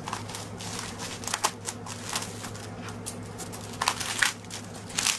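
Kitchen knife cutting through the base of a napa cabbage: irregular crisp crunches and snaps as the firm stem and leaves give way, over a steady low hum.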